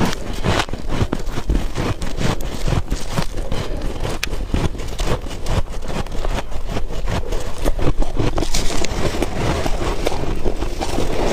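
Freezer frost crunching: a dense, continuous run of crisp crackles with no pause, briefly louder about eight seconds in.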